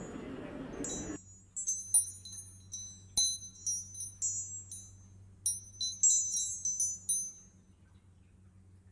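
High-pitched chimes ringing in an irregular run of quick tinkling strikes that stop near the end. A steady rushing noise cuts off suddenly about a second in.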